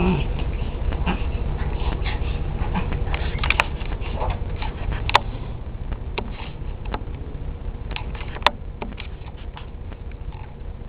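A dog and a cat scuffling in play: scattered light taps and clicks, with three sharper clicks, over a steady low rumble.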